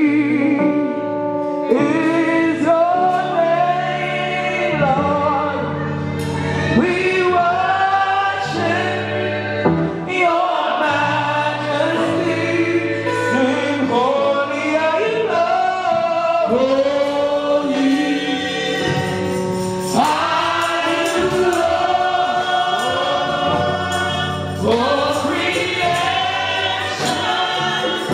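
Live gospel praise-and-worship singing: a woman leads into a microphone with backing singers joining in, over held notes from the instrumental accompaniment.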